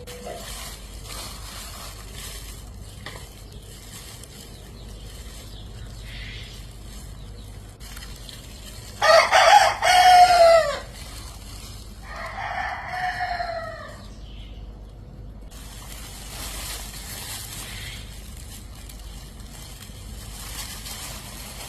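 A rooster crowing: one loud crow about nine seconds in, followed right after by a second, fainter crow, over a low background hiss.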